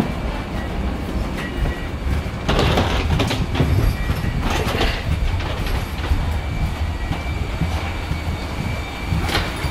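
Steady low rumble with a faint high whine inside a passenger jet bridge, broken by a few louder rattling surges as people walk along its floor, the loudest a couple of seconds in.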